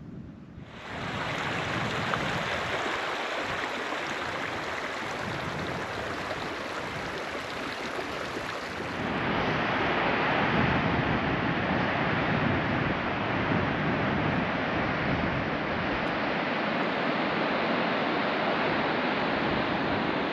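Steady wind rushing over the microphone, a constant noisy hiss that grows louder and fuller about nine seconds in.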